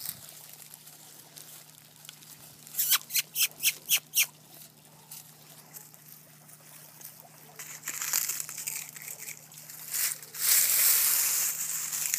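Dry fallen leaves crackling and rustling as two basset hound puppies wrestle in them: a quick run of about seven crackles a few seconds in, then a longer, louder stretch of rustling near the end.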